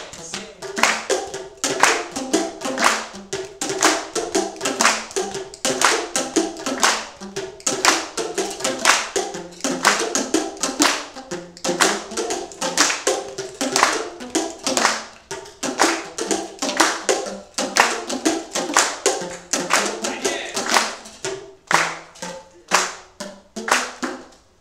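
Tuned plastic percussion tubes (Boomwhackers) struck by a group in a quick rhythmic pattern, each hit sounding a short pitched note, mixed with hand claps. The hits get sparser and softer near the end.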